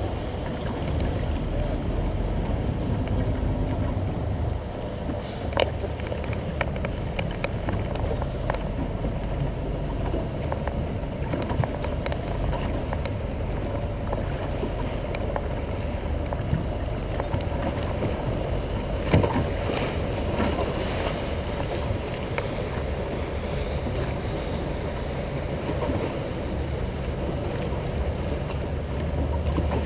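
A small boat underway on choppy harbour water: the steady low drone of its motor, mixed with water rushing and splashing close by. A couple of sharp knocks stand out, one about five seconds in and a louder one near the middle.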